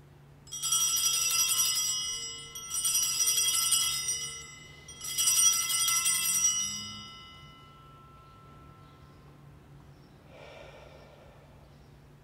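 Altar bells rung three times at the elevation of the consecrated host. Each ring is a cluster of high bell tones that fades away.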